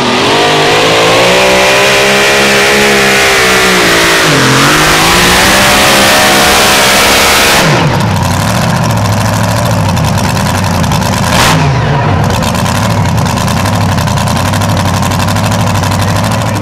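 Supercharged engine of a two-wheel-drive pulling truck at full throttle, dragging a weight sled. Its pitch sags and recovers about four and a half seconds in. About eight seconds in the throttle is cut and the engine drops to a lower, steadier run, with one short rev a few seconds later.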